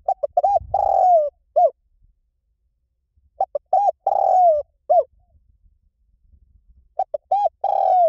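Spotted dove cooing: three phrases about three and a half seconds apart, each a few short coos, a longer falling coo and a short closing note.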